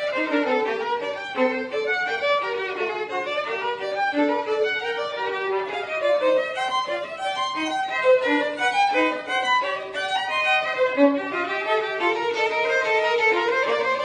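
Violin duet: two violins playing a melody together in quickly changing notes.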